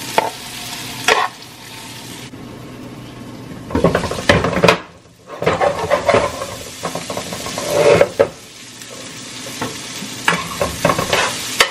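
Chicken, shrimp and bell peppers sizzling in a frying pan while a utensil stirs and scrapes them in repeated short strokes. The sizzle drops away briefly about halfway through, then comes back.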